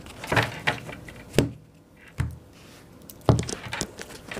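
A deck of tarot cards being shuffled by hand, heard as several short, irregular bursts of card rustle and snaps, with a duller knock a little after two seconds in.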